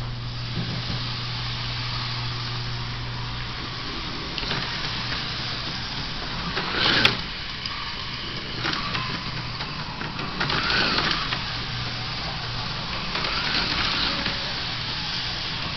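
Small electric motor of a model vehicle running on a toy train and slot-car layout: a steady low hum and whir that swells and falls several times, loudest about seven seconds in and again around eleven seconds.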